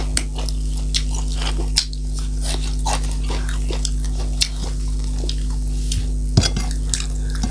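Close-miked chewing and biting of dried meat (sukuti): a scatter of small wet mouth clicks, over a steady low hum.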